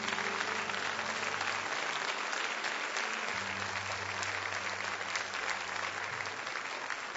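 A church congregation applauding steadily at the close of a sermon. Low held tones sound underneath and change pitch a few times.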